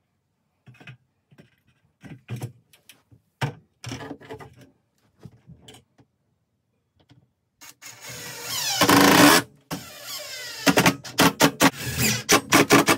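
Cordless drill driving drywall screws up through a metal closet-door top track into the overhead. First come scattered clicks and knocks as the screw is set against the track; about eight seconds in the drill motor runs and rises in pitch for a second and a half, then a fast run of short pulses follows near the end as the screw is driven home.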